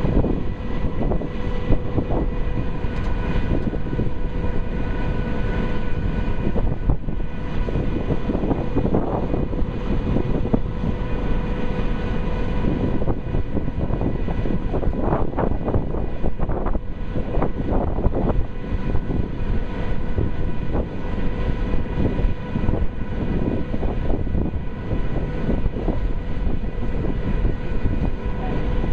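Steady drone of the Condor Vitesse high-speed catamaran ferry under way, a constant whine of several even pitched tones over a thick rushing noise, with wind buffeting the microphone.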